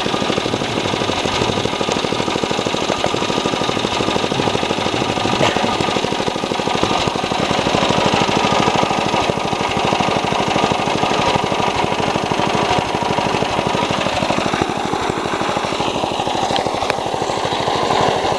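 Riding lawnmower engine running steadily at speed, a loud, even, rapid chatter of firing pulses.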